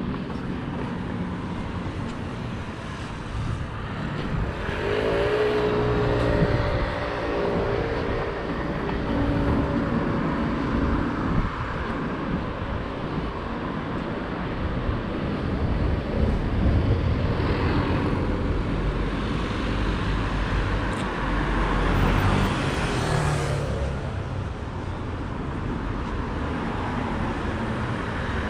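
Street traffic: cars passing one after another, with a louder vehicle whose engine tone shifts in pitch about five seconds in.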